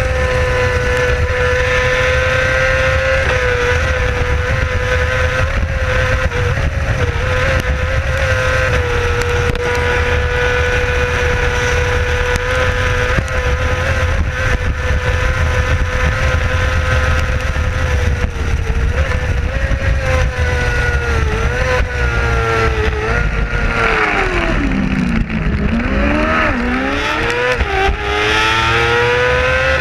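Onboard sound of a racing sidecar outfit at full speed: the engine is held at high, steady revs over a rush of wind. About two-thirds of the way through, the revs fall away in a few steps to a deep dip, then climb again through the gears.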